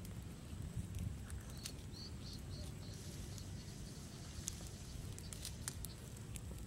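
Small wood fire crackling, with scattered sharp snaps and clicks from burning twigs, over a steady low outdoor rumble.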